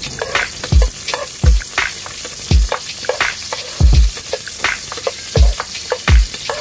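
Sliced onions sizzling as they fry in oil in a wok, stirred with a metal spoon that clicks and scrapes against the pan. A deep, falling thump repeats about once a second over it.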